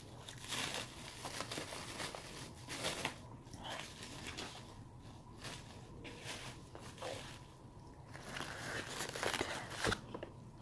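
Plastic cling wrap crinkling and rustling in short, irregular spells as it is handled and pulled off a fruit cup.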